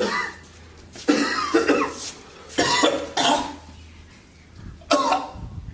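A person sick with a high fever coughing hard in several separate fits.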